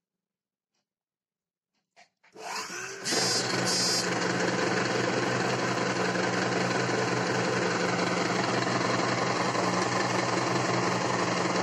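Near silence, then a small click about two seconds in and a Singer electric sewing machine starting up, settling within a second into a steady run as it stitches a seam through the silk fabric.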